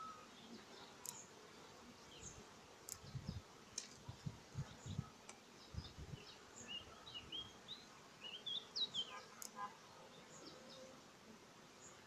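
Honeybees humming faintly over an opened hive, with small birds chirping throughout. A few soft low thumps come in the middle stretch.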